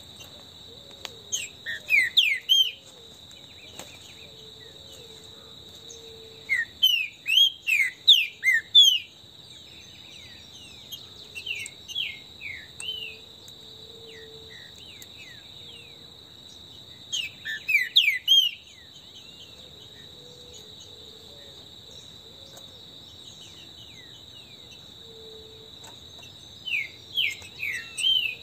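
Green-winged saltator (trinca-ferro) singing loud phrases of quick whistled notes, each phrase a second or two long, repeated several times with gaps of a few seconds. A steady high insect drone runs beneath.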